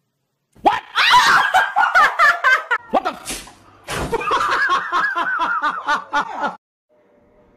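Hearty laughter in rapid fits of short ha-ha bursts, breaking off for a moment near the middle and stopping abruptly near the end.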